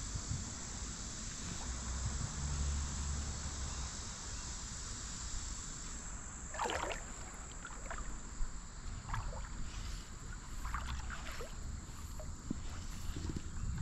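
Stream water lapping and moving around a wading angler's legs, with wind on the microphone. About halfway through and again around ten to eleven seconds in, a few short wavering calls cut in above it.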